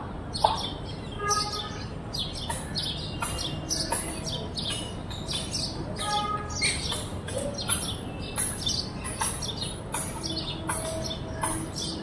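Rose-ringed parakeet calling: short, shrill chirps repeated several times a second.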